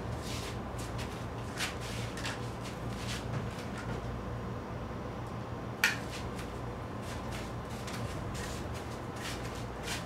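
Small clicks and rustles of a man handling small objects, with one sharp, louder click about six seconds in, over a steady low hum in a small room.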